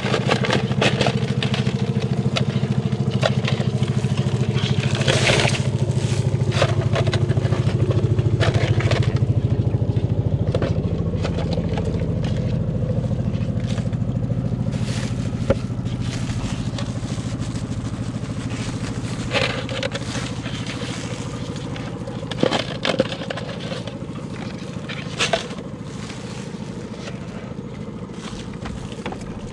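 A small engine running steadily with a low hum that slowly fades after about ten seconds. Over it, crinkling plastic and rustling netting as crabs are bagged, with scattered sharp clicks.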